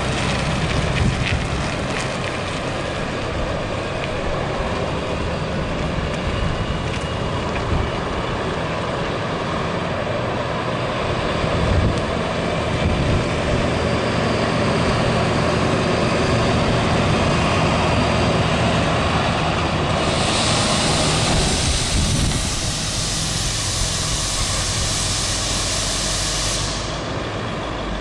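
Medium-duty diesel flatbed truck driving and manoeuvring, its engine running steadily. A long hiss lasts several seconds near the end.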